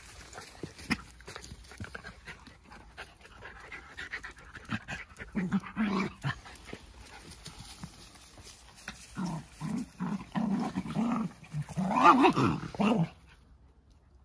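Two Jack Russell terriers play-wrestling: panting and scuffling, with short bursts of play-growling that come in clusters and are loudest near the end, then stop abruptly.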